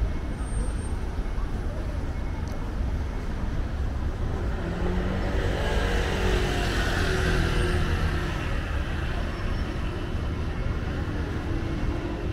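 Road traffic on a busy city street: a steady rumble of passing cars and vans, with one vehicle passing close by around the middle, its sound swelling and then fading.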